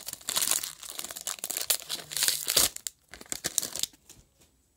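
Foil trading-card pack wrapper crinkling and tearing as it is ripped open by hand. The crackling thins out after about three seconds and stops about four seconds in.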